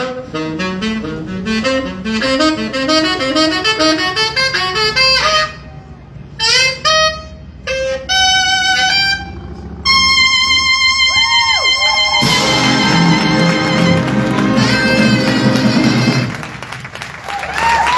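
High school jazz big band playing: quick runs of notes and short stabs, then the full band of saxophones and brass holding a loud closing chord that cuts off near the end.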